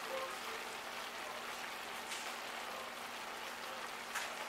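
Cabbage frying in a pan: a steady sizzling hiss with a few faint pops.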